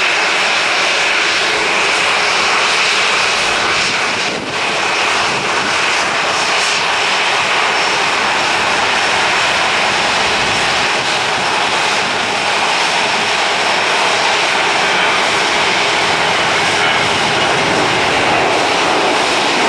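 Boeing 737-800's CFM56-7B turbofan engines running at taxi idle as the airliner rolls slowly in to the gate: a steady, loud jet whine with a high-pitched tone, dipping briefly about four seconds in.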